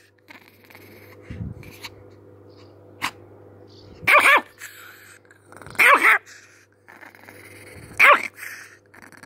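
Chihuahua barking three times, with short high barks about two seconds apart.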